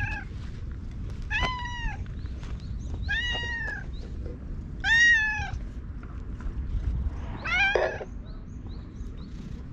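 Orange tabby cat meowing four times, a second and a half to two and a half seconds apart, each meow rising and then falling in pitch; the third meow, about halfway through, is the loudest.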